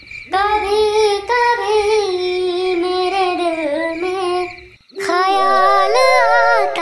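A voice singing a slow melody with long, wavering held notes, in two phrases with a short break a little before the five-second mark.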